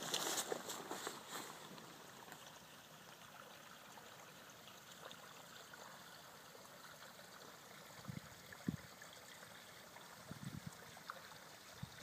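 Faint, steady outdoor background hiss with a water-like character, a little louder in the first second or so. Several soft low thumps come in the last few seconds.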